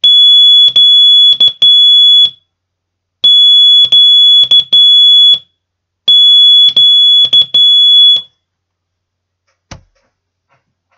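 Morse code keyed slowly on a hand telegraph key through a practice tone oscillator: a steady high beep sent as dah-dah-dit-dah, the letter Щ, three times in a row. A single sharp click follows near the end.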